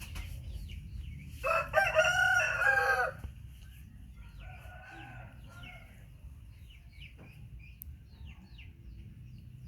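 A rooster crowing once, loud, about a second and a half in, followed by a fainter crow a few seconds later; small bird chirps between.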